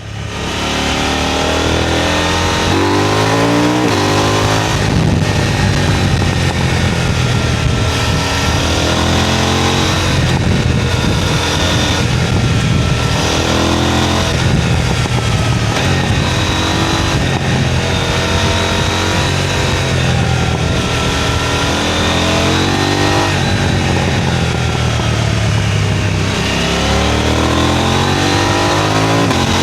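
KTM 990 Duke motorcycle engine and exhaust pulling through the gears, the revs climbing and then dropping at each upshift, several times over.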